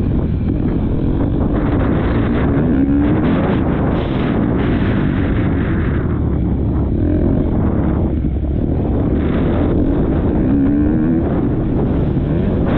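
Motocross bike engine revving hard and rising and falling in pitch as the throttle opens and closes, with heavy wind buffeting on a helmet-mounted microphone.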